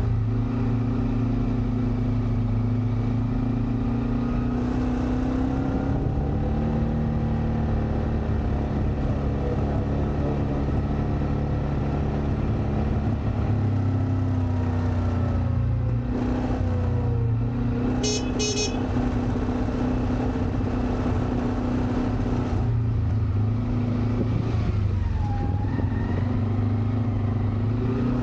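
A motor vehicle's engine running steadily, its pitch drifting up and down, with a quick double beep of a horn about two-thirds of the way through.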